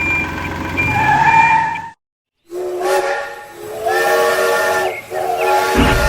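An electronic toy's beeping, then, after a brief cut, a toy train's electronic steam-whistle sound effect: a chord of steady tones sounded in several long blasts with short breaks.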